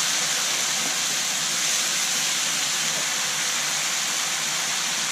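Chopped onions frying in oil in a steel kadhai over a medium gas flame, with a steady, even sizzle.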